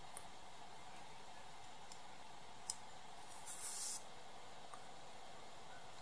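Faint handling sounds of small model-car parts in cotton-gloved hands: a small click a little before halfway and a brief scratchy rustle about a second later, over a faint steady hiss.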